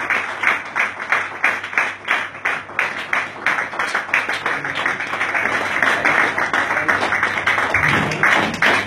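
Audience clapping together in a steady rhythm, about four claps a second.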